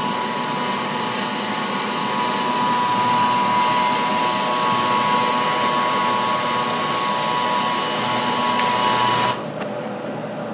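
Ultrasonic wash tank of a Branson Benchmark aqueous cleaning system with its sonics running: a loud, steady high-pitched hiss with a few steady whining tones from cavitation in the water. It cuts off suddenly near the end.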